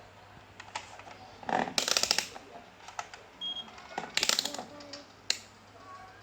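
Handling noise from work on a flat-screen TV: two short bursts of rapid clicking and rattling, then one sharp click near the end.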